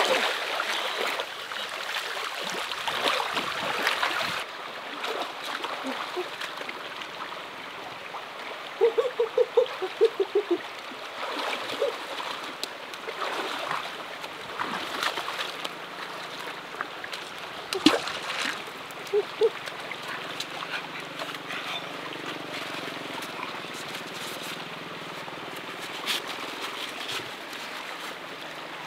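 People splashing and swimming in a shallow river over the steady rush of flowing water. The splashing is heaviest in the first few seconds; after that the stream goes on with smaller splashes and knocks.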